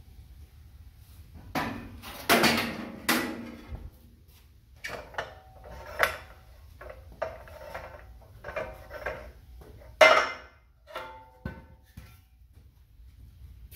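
Steel pipe and the parts of a Greenlee hydraulic pipe bender clanking and knocking as they are handled and the bent pipe is taken out of the bender. A cluster of loud clanks comes about two to three seconds in, and the loudest single clank about ten seconds in.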